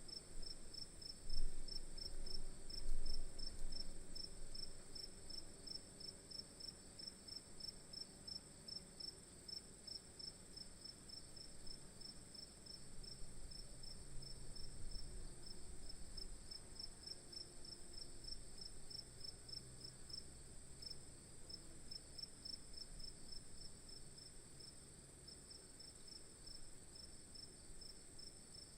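Insects chirping: a regular high chirp about three times a second over a steady high-pitched trill, with a couple of low thumps near the start.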